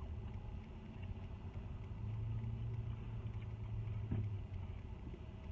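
A car engine idling with a steady low hum that swells a little partway through.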